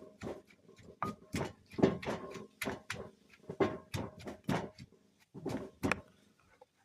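A run of sharp knocks, irregular at about two a second, each with a brief ring, thinning out near the end.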